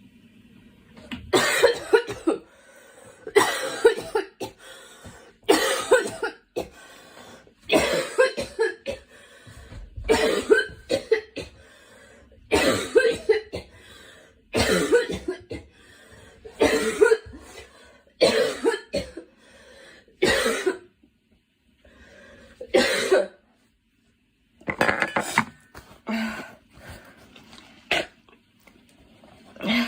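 A girl coughing in repeated fits: about a dozen bouts roughly two seconds apart, each a quick run of several coughs. There is a longer pause about two-thirds of the way through.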